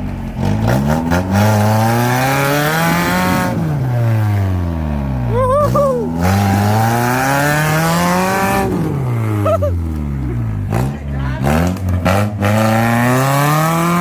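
Off-road 4x4's engine revving hard, rising in pitch over a few seconds and dropping back, three times. Two short higher-pitched sounds cut in, about six and ten seconds in.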